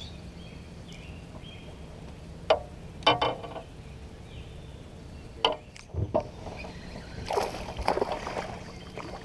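Water lapping and sloshing around a kayak, over a steady low rumble, with a few short sharp knocks. Near the end comes a longer stretch of splashing as a hooked bass fights at the surface.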